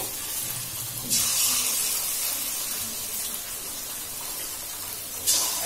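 Batter pakoras deep-frying in hot oil in a kadai: a steady sizzling hiss that grows louder about a second in and swells again briefly near the end.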